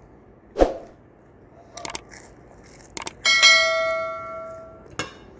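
A crunchy bite into a French fry about half a second in. Then the sound effects of a subscribe-button animation: a couple of clicks, and a bell chime near the middle that rings out and fades over about a second and a half. One more click comes near the end.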